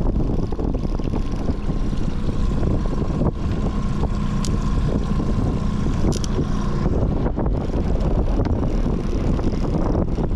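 Boat motor running steadily under heavy wind noise on the microphone, with a steady hum that drops out about seven seconds in.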